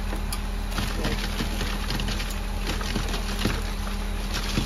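Concrete pump truck running with a steady low hum, under irregular knocks and clatter on the wooden scaffold staging and block shuttering as the pour is worked.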